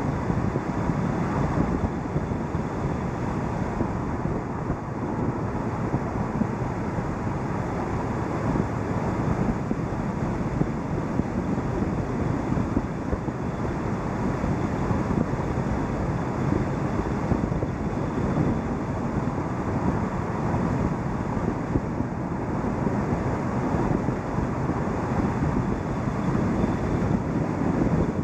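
A car driving: a steady rush of wind on the microphone mixed with tyre noise on the road, with no engine note standing out.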